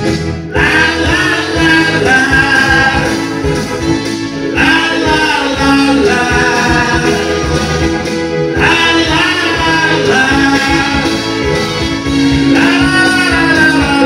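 A man singing into a microphone over instrumental accompaniment, in phrases that start about every four seconds.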